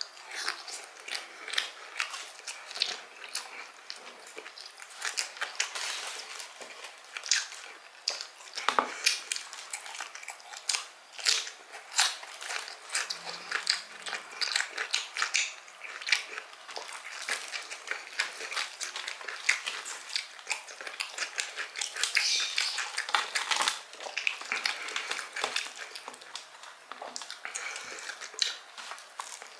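Close-up eating sounds of crispy fried chicken (ayam kremes): rapid, irregular crunching clicks from biting into and chewing the crisp crust.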